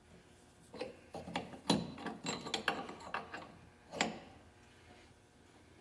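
Hand tools and metal fittings clinking and knocking as they are handled and set down, a quick run of clicks with the loudest knock about a second and a half in and a last single knock near four seconds.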